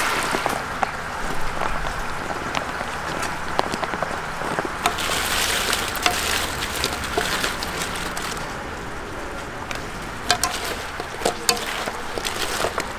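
Chicken deep-frying in a cauldron of hot oil: a steady sizzle with scattered sharp clicks of utensils.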